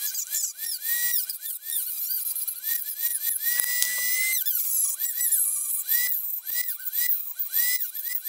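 Handheld high-speed rotary tool with a cut-off disc cutting a hole in a PLA 3D-printed part: a high whine whose pitch sags each time the disc bites into the plastic and climbs back as it is eased off. For a moment about halfway through it runs free at a steady pitch.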